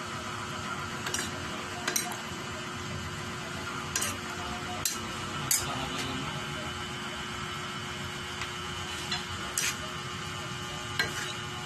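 A metal spoon stirring ground meat, green beans and leafy greens in a stainless steel pan, with several sharp clinks of the spoon against the pan over a steady frying sizzle.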